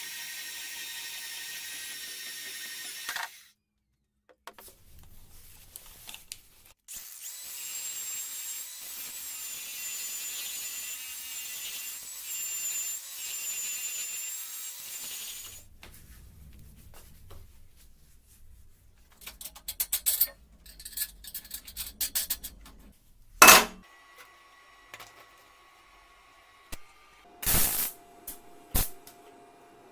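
Electric power tool whining in two runs, the second one wavering in pitch as if under load. It is followed by a scatter of sharp knocks and clicks, one much louder than the rest.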